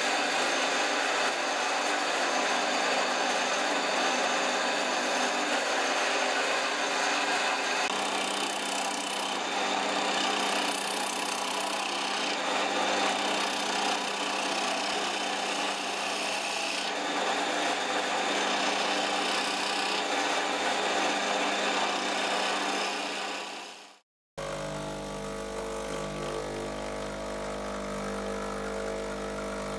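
Wood lathe spinning a timber handle blank while a hand turning tool cuts it, a steady scraping hiss of wood being shaved. It cuts off suddenly, and for the last few seconds an espresso machine's pump hums steadily as a shot pours.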